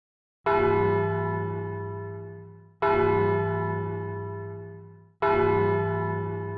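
A deep bell tolling three times, evenly about two and a half seconds apart. Each stroke rings and fades away before the next.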